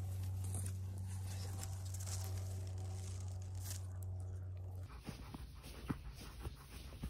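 A dog nosing through long grass, the stems rustling and crunching, over a steady low hum. About five seconds in the sound cuts to the dog panting in short, quick breaths.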